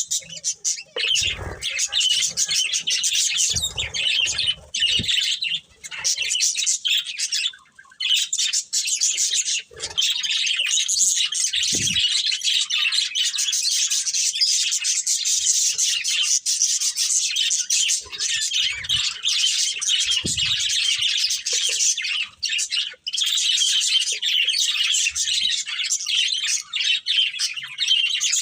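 Budgerigars chirping and chattering without a break, a dense stream of high twittering notes, with a few soft low thumps among them.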